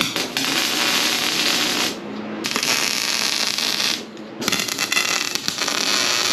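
Wire-feed (MIG) welder arc crackling as it lays tack welds on 3/4-inch square steel tubing, in three bursts of about two seconds each with short pauses between.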